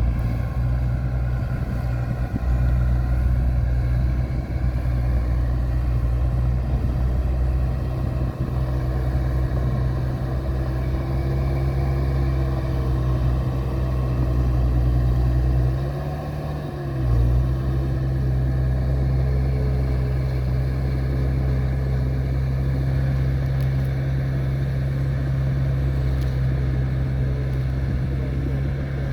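A vehicle engine running steadily with a low, even drone; it dips and shifts briefly about halfway through, then carries on as before.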